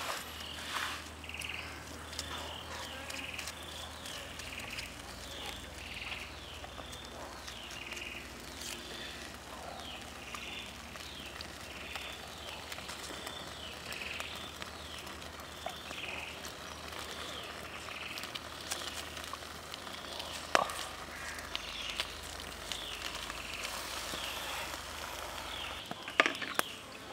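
Forest ambience: an animal repeats short falling chirps over and over, about one a second, over a low steady hum. A sharp snap comes about twenty seconds in, with a few more clicks near the end.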